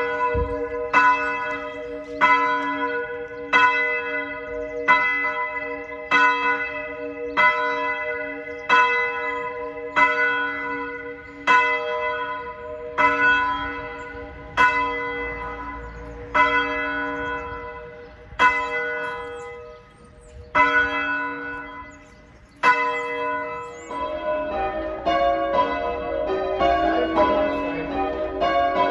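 A ring of three church bells, tenor 6-0-6 in B, rung full-circle from ropes. Each strike rings on, and the strikes come about every second and a half, spacing out a little in the middle. Near the end the strikes come faster and overlap into a clangour.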